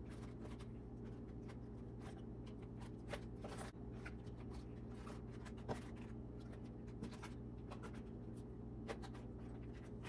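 Crisp romaine lettuce leaves rustling softly as they are laid by hand into a plastic container, with scattered light clicks and crinkles over a steady low hum.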